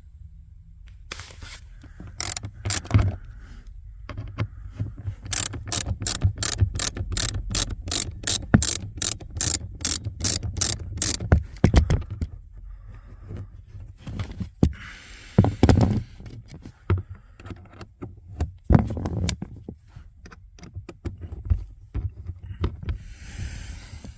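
Hand ratchet clicking in a quick, even run of strokes as a T20 Torx fastener is backed out, with scattered knocks and clatter of tools and plastic trim before and after.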